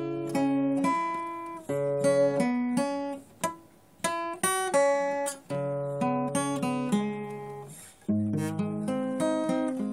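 Solo acoustic guitar playing plucked notes and chords that ring and fade, in phrases with short breaks. About eight seconds in, it moves to lower bass notes.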